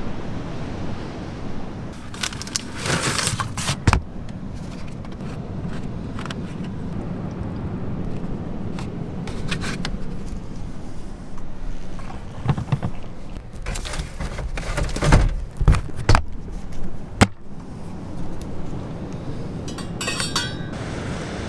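Clatter and knocks of a plastic folding table with a metal frame and camping gear being handled, with the loudest sharp knocks in the second half. Near the end a spoon clinks rapidly against a metal cup as coffee is stirred.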